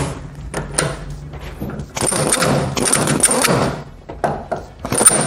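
Pneumatic air hammer driving the upper steering-head bearing race of a Pulsar 200 NS into the frame's steering head through an installer tool: a few knocks as it is set, then a rapid hammering burst of nearly two seconds from about two seconds in, and another starting near the end.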